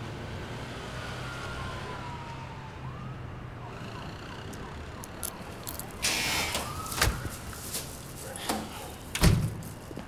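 Steady night-time street ambience with a faint siren wailing far off, its pitch sliding down and back up. A few sharp clicks come over it in the second half, and the loudest is a click with a dull thump near the end.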